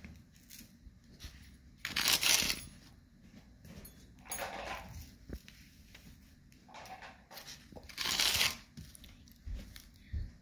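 Steel spoon scraping and pushing rangoli powder across a sheet of paper: three short scrapes, about two, four and a half, and eight seconds in, the first and last loudest.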